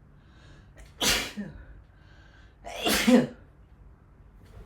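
A person sneezing twice in a row, about two seconds apart, the second sneeze louder, in the middle of a sneezing fit.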